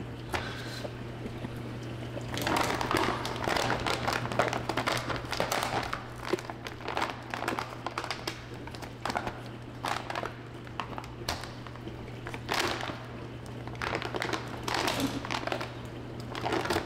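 A large plastic rice bag with a string-stitched top being torn open by hand, rustling and crinkling in irregular bursts.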